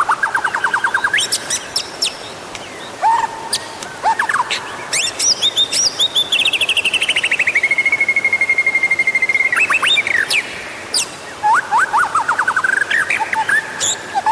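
White-rumped shama (murai batu) singing a varied song of fast trills, quick upward and downward sweeps and clear whistles. In the middle comes a long trill that drops in pitch and then settles into a fast run of repeated notes on one pitch.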